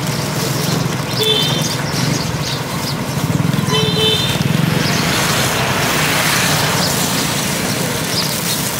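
Busy street ambience dominated by a motor vehicle engine running close by, with a short high beep about a second in and a double beep about four seconds in.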